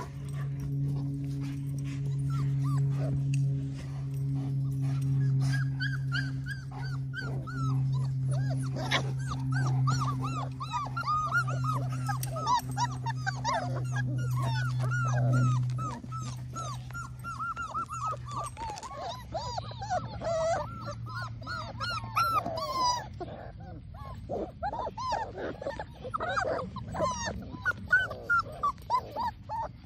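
Labrador retriever puppies whimpering and yipping, a busy run of short rising-and-falling whines that starts about five seconds in and keeps going. Under the first half runs a steady low hum that drops away past the middle.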